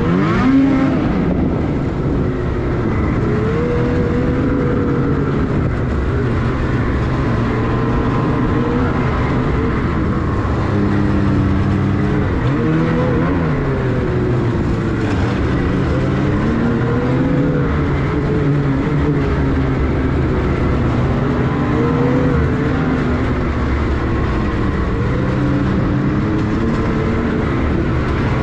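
Ski-Doo Renegade 850's two-stroke twin engine running under way, its pitch rising and falling again and again as the throttle is worked. It is a new crate engine being broken in.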